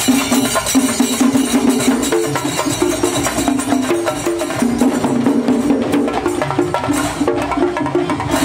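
Music: a melody of held notes over fast, busy percussion.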